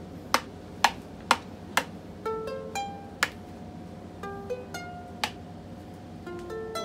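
Acoustic ukulele picking single plucked notes in a slow melody. Sharp clicks stand out above it, four about half a second apart in the first two seconds, then two more spaced about two seconds apart.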